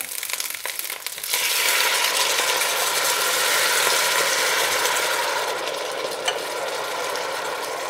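Vegetable broth ladled into a hot braising pan of seared savoy cabbage rolls: a quieter crackling sizzle in the hot fat, then about a second in a sudden loud hiss as the broth hits the pan, slowly dying down. A single click a little after the middle.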